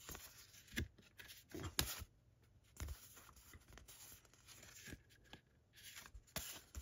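Light handling of thin card art cards: soft rubbing and sliding with a few light taps and knocks.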